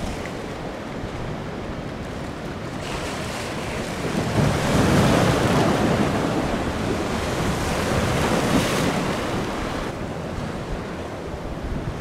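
Ocean waves breaking and whitewater rushing, with gusty wind buffeting the microphone. The rush swells louder about four seconds in as a wave breaks, then eases off near the end.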